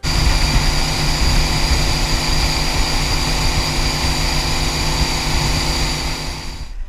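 A 1992 Ski Nautique's inboard engine running steadily under way, with its engine cover off, and a steady rushing noise over it. The sound starts abruptly and stops just before the end.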